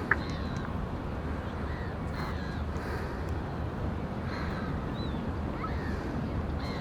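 South American sea lions in a colony giving raspy barks and bellows a few times, over a steady low rumble of wind and surf. A few faint, thin bird chirps sound high above them.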